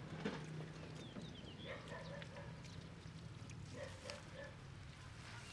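Faint rural background with a steady low hum and a few short animal calls, plus one sharp click shortly after the start.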